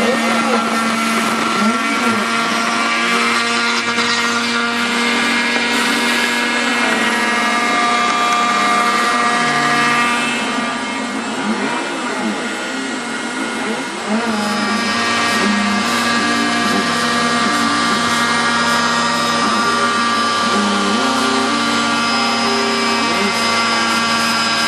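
Homemade CNC router carving wood: the spindle motor runs steadily with its bit cutting, under stepper-motor whines that jump and glide in pitch as the axes move. It dips a little quieter for a few seconds near the middle.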